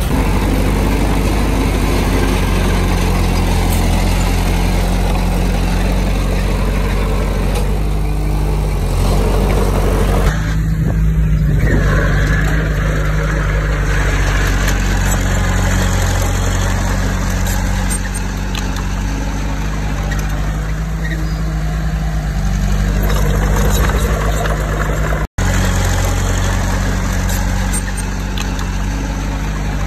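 Heavy diesel earthmoving machinery running steadily with a deep engine drone. The sound changes abruptly about ten seconds in and cuts out for an instant about 25 seconds in.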